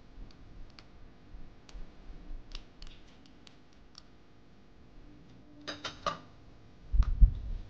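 Metal spoon scraping and clicking against a small ceramic ramekin and a ceramic bowl as thick mustard is spooned out and stirred; light, scattered clicks. A low thump near the end.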